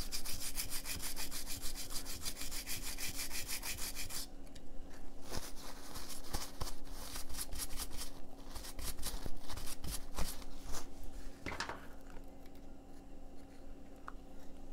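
A stiff-bristled brush scrubbing the soldered side of a power-supply circuit board clean in quick back-and-forth strokes. The strokes thin out after about four seconds, and it grows quieter near the end.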